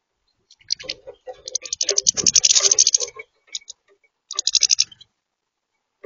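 Goldfinches pecking at seed on a plastic feeder tray: rapid clicking and rattling of beaks on seed and plastic, in one longer run of about two seconds followed by two short bursts.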